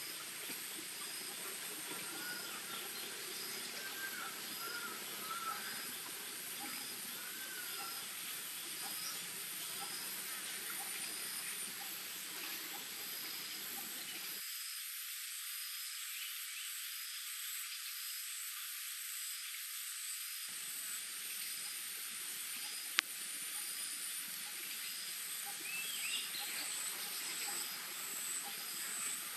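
Forest ambience of insects: a steady high-pitched trilling and a faint call repeating about once a second, with a few short chirps. A single sharp click sounds about two-thirds of the way through.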